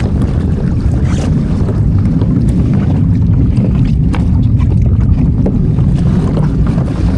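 Wind buffeting the microphone in a steady low rumble aboard a Hobie Adventure Island sailing kayak under way, with scattered light splashes of water against the hull.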